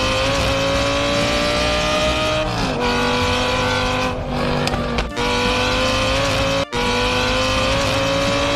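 Race car engine running at high revs, its pitch climbing steadily and dropping sharply twice at gear changes before climbing again, with a split-second cut-out late on.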